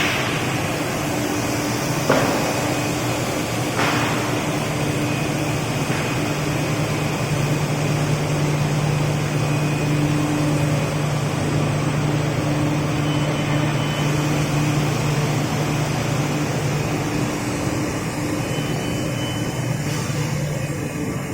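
Rubber extrusion and microwave vulcanization line running: a steady machine drone with a low hum, and a few short knocks about two and four seconds in.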